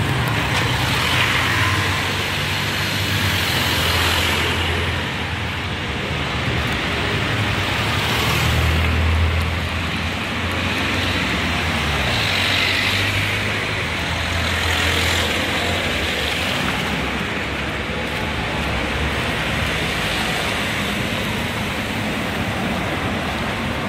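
Road traffic: motor vehicle engines running and passing, their engine notes rising and falling, with a rushing noise that swells and fades every few seconds.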